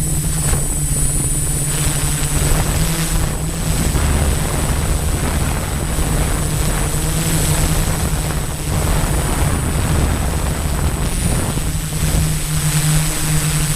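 Six-rotor multicopter (680 mm hexacopter) in flight, its electric motors and propellers droning steadily with a thin high whine, the drone's pitch wavering slightly as the motors adjust.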